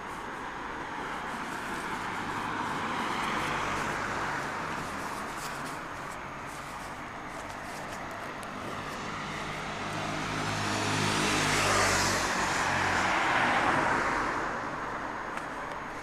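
Road traffic passing close by: one vehicle's tyre noise swells and fades a few seconds in, then a louder vehicle with a low engine hum passes in the second half.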